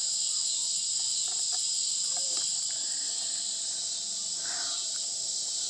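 Steady chorus of insects singing in the dark, with a fast, even pulsing of about five a second high above the main hum.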